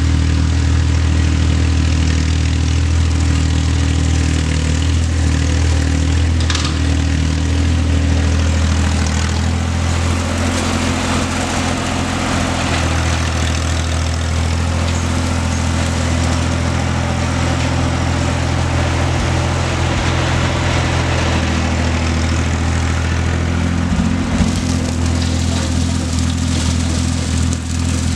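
Old John Deere riding mower's engine running steadily while mowing, its note shifting slightly about ten seconds in.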